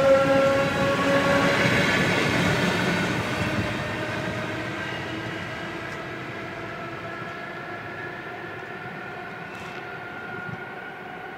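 A train passing and moving away, a steady whine over the rumble of its wheels fading gradually.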